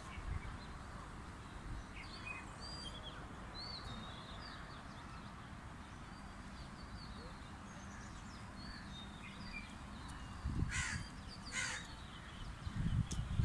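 Birds chirping and whistling, with two louder calls or bursts about eleven seconds in, over a steady low rumble.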